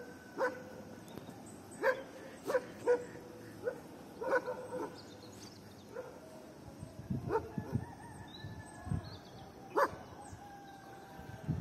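A dog barking in short single barks, bunched in the first few seconds, then a few sparser barks, the loudest near the end.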